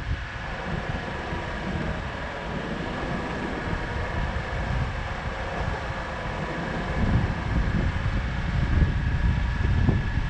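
Steady vehicle rumble with low, gusty wind noise on the microphone and a faint steady high tone running underneath.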